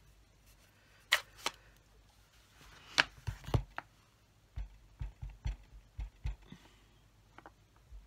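Clear acrylic stamp block with a rubber stamp being handled and dabbed onto a stamp pad: a few sharp plastic clicks, then a quick series of about half a dozen soft thuds as the stamp is tapped on the ink pad.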